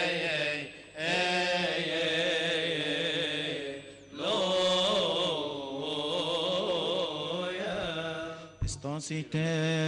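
Men chanting a Coptic Orthodox liturgical hymn in unison, with long, wavering melismatic notes and brief breaths about one and four seconds in. Two sharp knocks come near the end.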